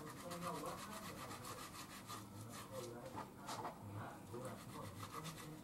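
Kitchen knife sawing through thin slices of meat on a wooden cutting board: a quick run of short strokes, the blade rubbing and scraping against the wood.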